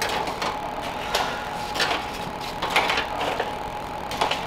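Crisp fried tortilla chips clattering and crackling in short irregular bursts as they are laid out on a sheet pan, over a steady background hum.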